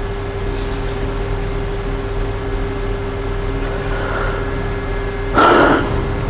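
Steady background hum and hiss with no speech, and one short burst of noise about five and a half seconds in.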